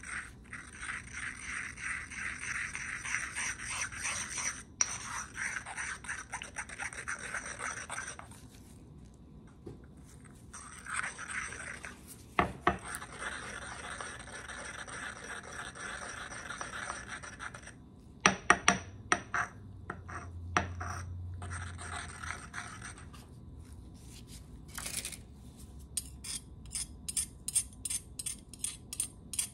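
Ceramic pestle grinding and rubbing a cream-and-powder mixture round a ceramic mortar, in spells of scraping with short pauses, as the powder is triturated into the cream base. There are a few sharp knocks of pestle on mortar, the loudest about two-thirds through. Near the end a metal spatula scrapes quickly and repeatedly along the pestle.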